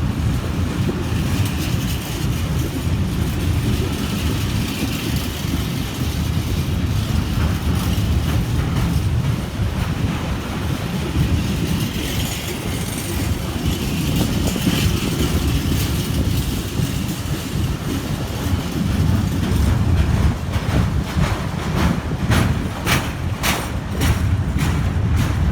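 Train passing close by: a steady low rumble of wheels on rail, with a quick run of sharp wheel clicks over rail joints near the end.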